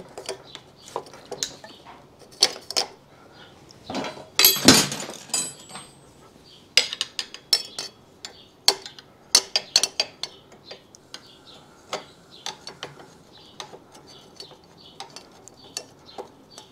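Irregular metal clicks and knocks from a motorcycle fork tube and a T-handle puller being worked up into the fork clamps, with one louder, longer rattle about four and a half seconds in.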